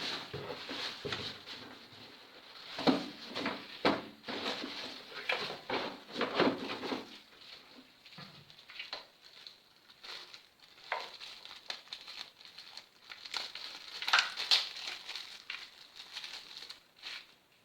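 Irregular clicks, knocks and rustling of ring-light parts being handled and fitted together while mounting the ring light on its stand, busiest at the start with a few louder clicks near the end.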